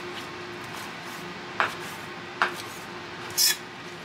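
Kitchen knife cutting fresh wakame on a cutting board: two sharp knocks of the blade on the board, under a second apart, then a short high scraping hiss near the end, over a faint steady hum.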